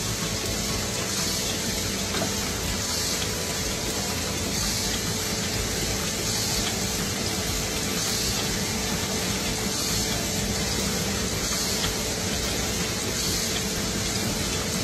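Automated pen-capping machine running: a steady rushing hiss with a faint swell in the higher hiss about every two seconds.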